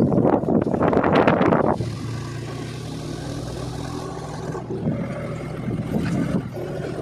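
Wind buffeting the microphone on a moving motorbike, then about two seconds in the wind drops and the motorbike's engine is heard running with a steady hum.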